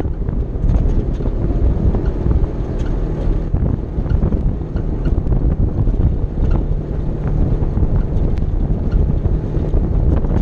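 Polaris RZR side-by-side driving on a gravel road, its engine running steadily under heavy wind noise buffeting the hood-mounted microphone, with short ticks now and then from gravel.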